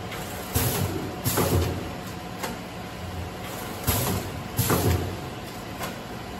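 Today Machine vertical granule packing machine running as it forms, fills and seals bags: a steady hum under short bursts of hiss that come mostly in pairs about three seconds apart.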